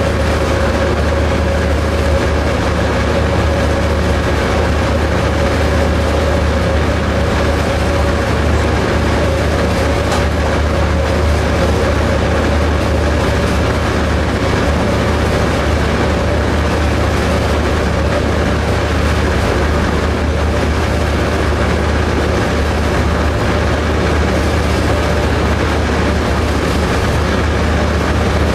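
Diesel locomotive cab interior at speed: the EMD F40PH-2C's diesel engine drones steadily over wheel and rail noise. A thin steady whine runs under it and fades out about eight seconds in.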